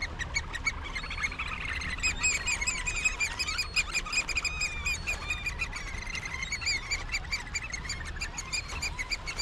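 Birds chirping and chattering in fast runs of short, high notes, several voices overlapping. The calls grow thicker about two seconds in.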